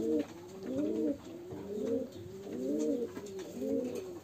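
Domestic pigeon cooing: a run of short coos, each rising and falling in pitch, following one another without a break.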